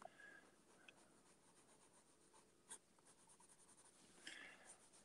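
Faint scratching of pencil strokes on smooth paper, in quick short strokes, with a single sharp click nearly three seconds in.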